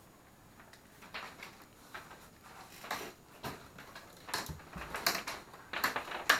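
Marbles rolling and clattering down a marble run made of paper and masking tape: irregular small clicks and knocks, coming more often and louder near the end.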